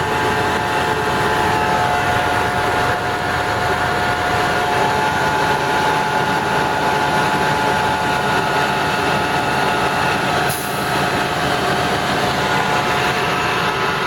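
Heavy diesel truck engine running steadily, with a constant mechanical whine over it and a short click about ten seconds in.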